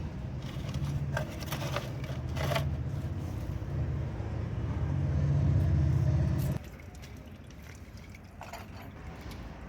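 Metal clicks and scrapes of hand tools working loose a bolt on a car's gear-shift assembly, over a steady low machine hum that cuts off suddenly about two-thirds of the way through.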